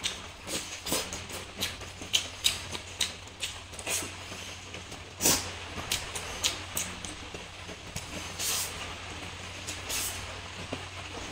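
Close-up mouth sounds of a man eating stir-fried instant noodles and fried egg by hand: a string of short wet chewing clicks and smacks, the loudest about five seconds in, over a steady low hum.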